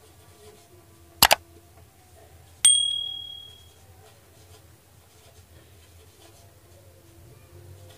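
Subscribe-button sound effect: a quick double mouse click, then a single bright bell ding that rings out and fades over about a second.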